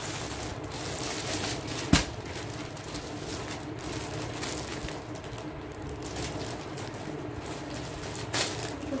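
Plastic courier mailer and poly packaging rustling and crinkling as a parcel is opened by hand, with one sharp click about two seconds in.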